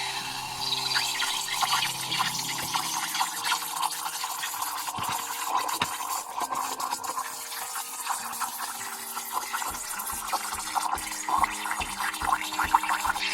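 Breville espresso machine's steam wand hissing and crackling steadily as it froths milk, over soft background music.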